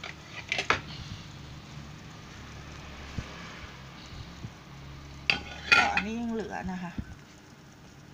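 Omelette frying in deep oil in an electric frying pan, the oil sizzling steadily, with a few clicks of a utensil against the pan and a louder clatter and scrape about five seconds in.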